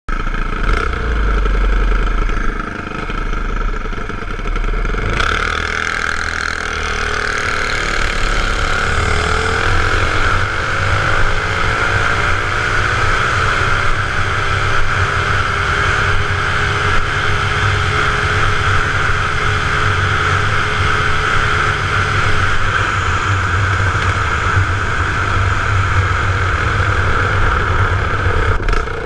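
Small minibike engine running under way, filmed from a camera on the bike, with a heavy low rumble of wind on the microphone. The engine pitch rises about ten seconds in as the bike speeds up, then holds steady.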